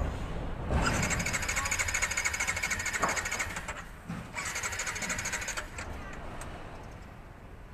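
Yamaha MX King motorcycle's electric starter cranking, first in a spin of about three seconds, then in a short burst of about a second.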